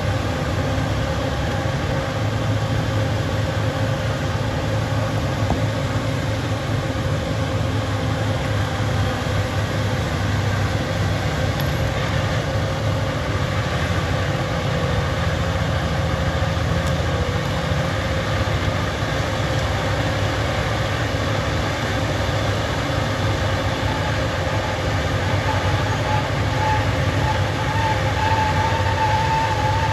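Bulldozer diesel engine running steadily under load, with a steady low rumble. A higher wavering whine comes in near the end.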